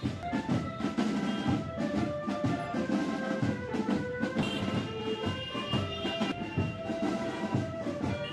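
Marching band drums, bass and snare, beating a steady rhythm several strokes a second, with a melody of held notes playing over them.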